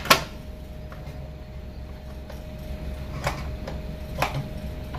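Sharp plastic clicks from handling an air fryer basket: one loud click at the start, then two fainter ones later on as hands grip the basket handle, over a steady low hum.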